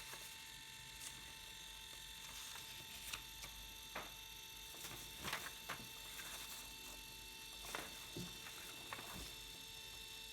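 Canon Ivy mini photo printer running mid-print: a faint steady hum with a fixed whine, and a few small clicks and taps scattered through.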